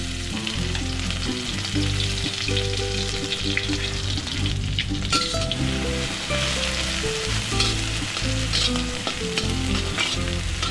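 Pounded dried shrimp sizzling in hot oil in a stainless steel wok, stirred with a metal spatula that clicks and scrapes against the pan now and then. It is the first stage of the stir-fry, frying the shrimp until crispy and fragrant. Light background music plays underneath.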